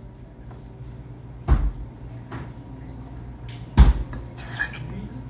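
Knife cutting through a salmon fillet and knocking on the cutting board: two dull thuds about two seconds apart, with a lighter tap between them, over a low steady hum.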